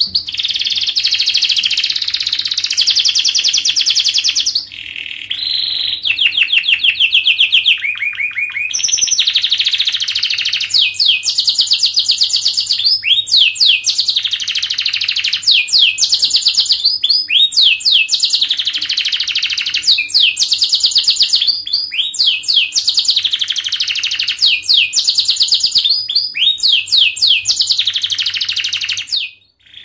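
Canary singing a long, continuous song of very fast, tightly packed trills and rapid falling sweeps, broken only by a short pause about five seconds in. A faint steady hum runs underneath.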